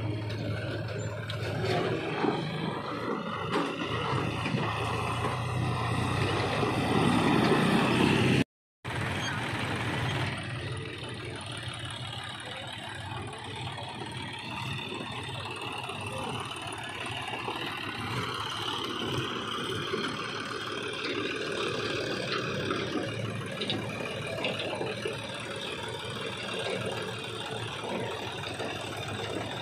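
John Deere tractor's diesel engine running as it pulls a loaded soil trailer, growing louder over the first eight seconds. The sound drops out briefly about eight and a half seconds in, then the engine carries on steadily.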